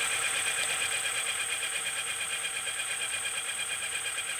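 Swagtron EB5 e-bike's brushless DC motor spinning the unloaded wheel at steady full-throttle speed, about 518 RPM, on a 36-volt brushless controller. It makes a steady electric whine made of several high tones.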